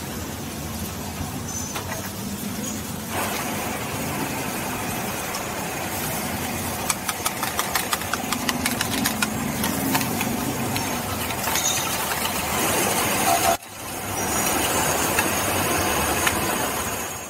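Cubes of butter sizzling as they melt in a large iron kadai over a gas burner, the sizzle growing louder about three seconds in, under a steady low roar. In the middle comes a quick run of metal taps and scrapes from a steel spatula against the pan, and the sound breaks off sharply once near the end.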